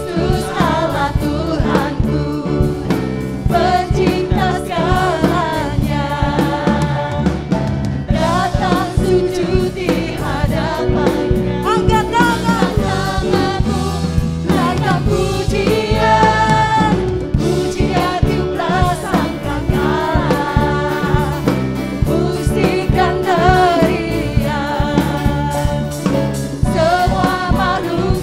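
Indonesian praise-and-worship song sung by lead and group voices over a full band with drums.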